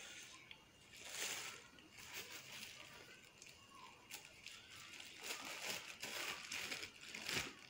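Faint rustling and soft scraping of dry flour and spice powders being tipped into a mixing bowl, in a few short bursts about a second in and again later on.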